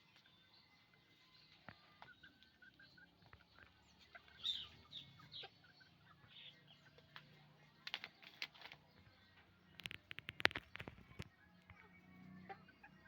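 A flock of chickens on a farm making scattered short clucks and calls, faint overall. A louder flurry of sharp sounds comes about ten seconds in.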